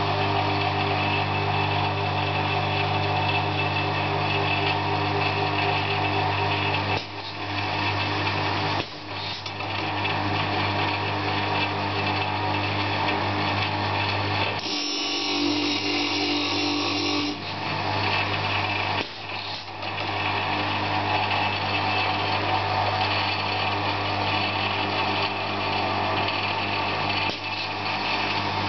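Pneumatic sharpening machine for carbide-tipped circular saw blades running: a steady motor hum under a dense grinding sound, dipping briefly a few times. About halfway through it changes for a couple of seconds to a steadier, higher-pitched tone.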